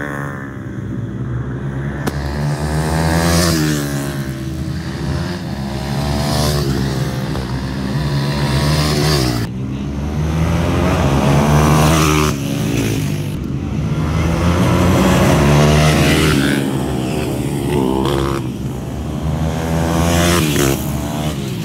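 Supermoto motorcycles racing, their engines revving hard and rising and falling in pitch again and again as riders open and close the throttle.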